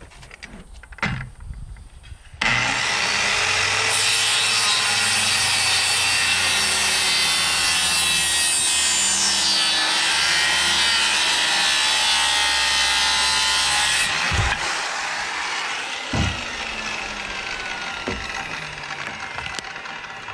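Corded circular saw cutting through a thick beam of freshly sawn, still-wet timber. It starts suddenly about two and a half seconds in, cuts steadily for about twelve seconds and stops, followed by two thumps.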